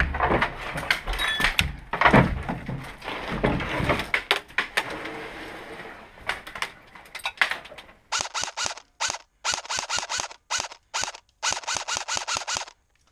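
A heavy thunk, then irregular knocks and clatter of footsteps and gear on loose boards and debris in a derelict wooden room. From about eight seconds in come a dozen short bursts of rapid clicking, separated by brief gaps.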